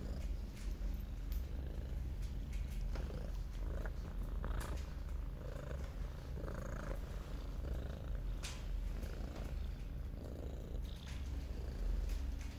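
Domestic cat purring steadily close to the microphone, with a few light clicks over it.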